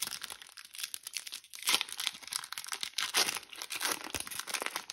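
Foil-lined Pokémon booster pack wrapper being torn open and crinkled as the cards are pulled out: a dense run of crackling and tearing, loudest about two and three seconds in.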